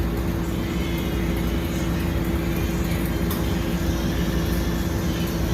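Steady mechanical drone of running machinery with a constant hum, unchanging throughout.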